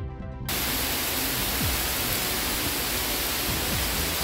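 Heavy rain falling on a pond surface and the surrounding leaves: a steady, even hiss. It resumes about half a second in after a brief dip.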